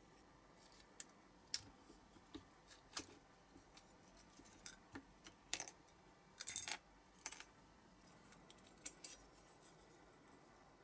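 Scattered small clicks and clinks of a diecast Matchbox BMC 1800 Pininfarina model being taken apart by hand, its plastic interior and clear window piece prised from the metal body with a metal hook tool. A short cluster of louder clicks comes about six and a half seconds in.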